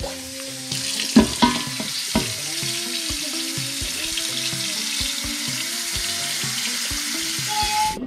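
Water from a kitchen sink's pull-down sprayer running steadily into a large stainless steel stockpot, filling it. It starts about a second in, with a couple of knocks soon after, and stops near the end.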